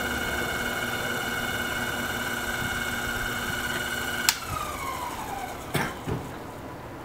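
Small bench lathe running at speed with a steady motor whine, switched off with a click a little over four seconds in, the whine falling in pitch as the spindle spins down. A couple of dull knocks follow near the end.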